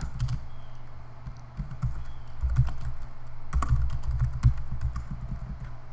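Typing on a computer keyboard: irregular key clicks as a line of code is edited.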